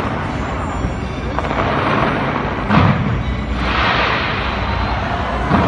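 Fireworks display: shells bursting with sharp booms, one about three seconds in and another near the end, over a continuous noisy rumble, with music playing.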